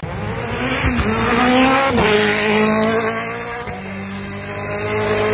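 Rally car engine running at high revs, rising in pitch and then dropping abruptly about two seconds in, then holding a fairly steady note.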